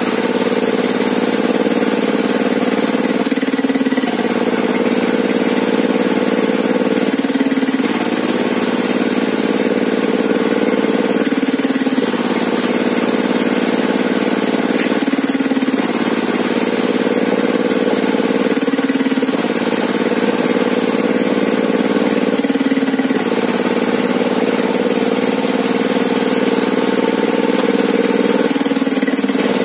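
A homemade sawmill table saw's drive running steadily, its note dipping briefly about every four seconds.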